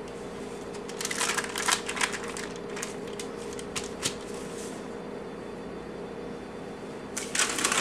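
Wax paper crinkling and crackling as no-bake chocolate oatmeal cookies are peeled off it and set on a plate, in a few short clusters of sharp clicks: one about a second in, scattered clicks after, and another near the end. A faint steady hum runs underneath.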